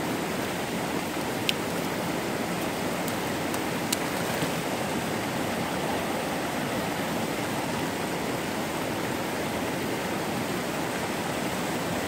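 Small creek cascade running over rocks: a steady rush of water, with two short clicks about one and a half and four seconds in.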